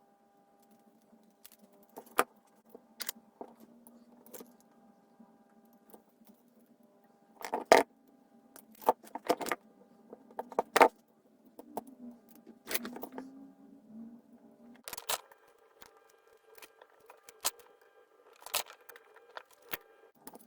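Scattered sharp clicks and metallic clinks of small tools and parts being handled on a workbench, busiest around the middle, over a faint steady hum.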